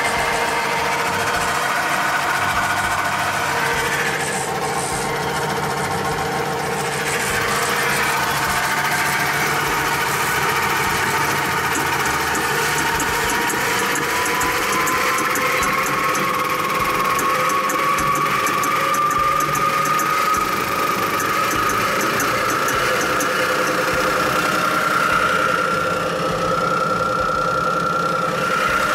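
Freund-Turbo Y60 OB bead mill running on its belt drive: a steady mechanical hum with a whine that slowly climbs in pitch through the middle of the stretch as the mill speeds up, to about 1,860 rpm on its rotation-speed display.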